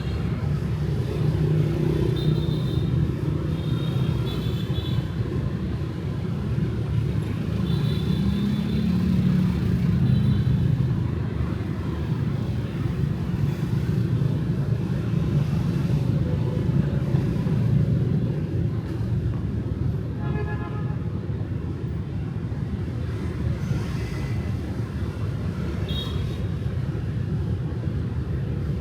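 Steady rumble of motorbike and car traffic passing on a city street, with short horn beeps now and then.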